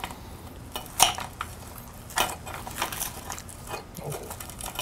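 Knife and fork clinking and scraping against a plate while cutting into smoked ribs, a scatter of separate clicks with the loudest about a second in.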